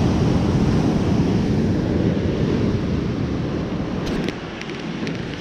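Wind buffeting the microphone over the wash of ocean surf, easing a little about four seconds in, with a few faint clicks near the end.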